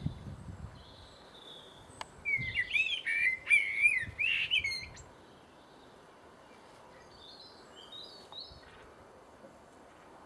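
A blackbird that mimics a phone sound, singing a loud warbling phrase of wavering notes for about three seconds starting about two seconds in, followed by a few faint high notes.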